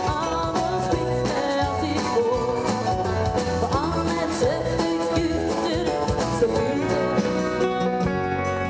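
Live dance band playing a country-style song: a woman singing over electric guitar, keyboard and drums with a steady beat.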